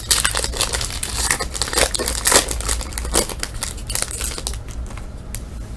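Foil wrapper of a basketball card pack being torn open and crinkled by hand, a run of irregular crackling and tearing that thins out near the end.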